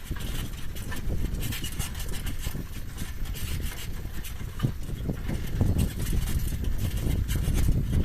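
A vehicle rolling along with a low rumble and a run of clicks and rattles, its wheel squeaking.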